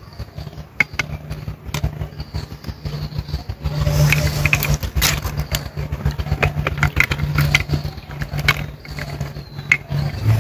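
A motor engine runs steadily, as a low hum that gets louder about four seconds in. Over it come many small clicks and splashes as roasted raw mangoes are put into a bowl of water and handled there.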